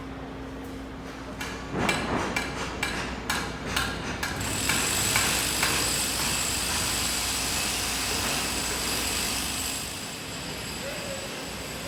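A quick, irregular run of sharp knocks for a couple of seconds, like hammering, then a steady rushing noise with a faint high whine that eases off near the end.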